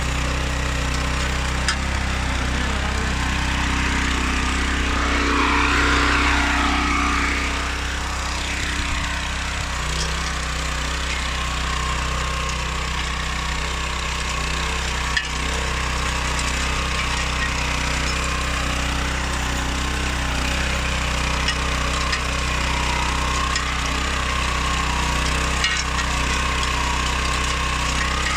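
Oleo-Mac MH 150 RK motor hoe's 700 H petrol engine running steadily, swelling louder for a few seconds around five seconds in.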